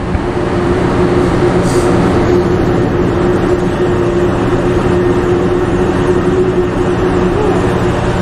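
Steady, loud drone of a container ship's machinery, with a constant humming tone over a broad rushing noise.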